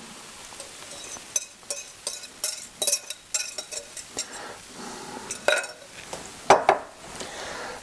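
Wire whisk clinking and scraping against a ceramic mixing bowl as beaten egg mixture is tipped out into a frying pan: a run of light clicks and clinks, with a few louder knocks near the end.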